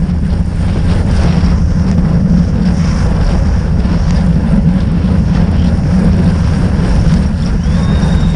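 Wind buffeting the microphone of a bicycle-mounted camera at race speed, a loud, steady rumble, with road noise underneath.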